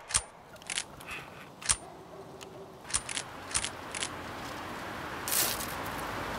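Handguns being handled during a standoff: a scatter of about seven sharp clicks over the first four seconds, like hammers being cocked and actions worked. A short hiss comes about five seconds in.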